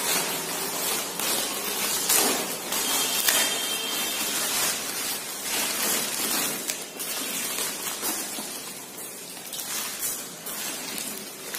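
Plastic bubble-wrap packaging crinkling and rustling as it is handled and unwrapped, with irregular crackles throughout.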